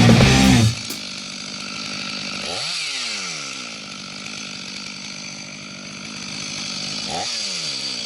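Loud rock music cuts off under a second in, leaving a two-stroke chainsaw idling. Its throttle is blipped twice, the revs shooting up and falling back, about two and a half seconds in and again near the end.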